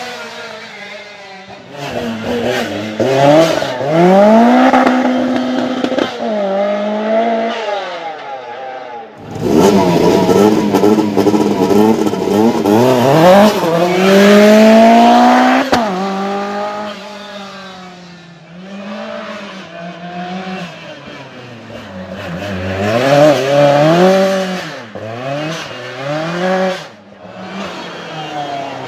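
Lancia 037 Group B rally car's supercharged four-cylinder engine revving hard, climbing in pitch and dropping back again and again as it works through the gears. The loudest, longest run comes about ten to sixteen seconds in.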